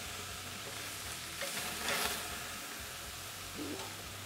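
Marinated beef short ribs sizzling steadily as they sear on a hot gas grill grate, just after being flipped. Metal tongs add a few brief louder scrapes about halfway through.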